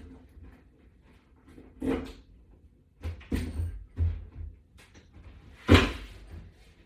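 Wall-mount bracket being handled and aligned against a wall, with a few separate knocks and clunks, the loudest about six seconds in.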